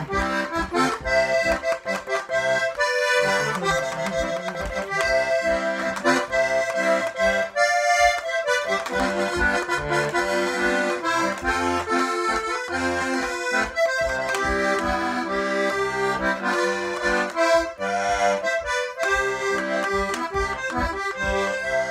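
Button accordion playing an instrumental break in a ranchera tune: a melody of held and quickly changing notes over chords and bass notes, with no singing.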